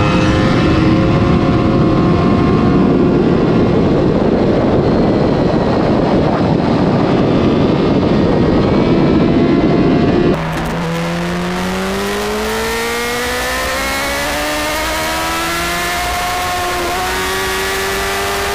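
Sport motorcycle at high speed: heavy wind rush over the engine drone. About ten seconds in, the sound cuts abruptly to a clearer engine note that rises steadily in pitch under acceleration, with a brief dip near the end like a gear change.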